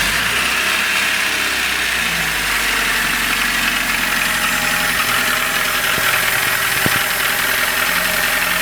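VAZ-2107's 1.5-litre carburettor four-cylinder engine running at idle with a very strong knocking, terrible noises from inside the engine.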